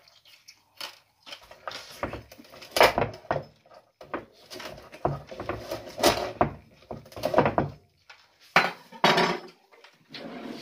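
A chef's knife crunching through the crackling skin of air-fried crispy pork belly and knocking down on a wooden cutting board, a string of short, crisp crunches about once a second. The crunch is the sign that the skin has come out crisp.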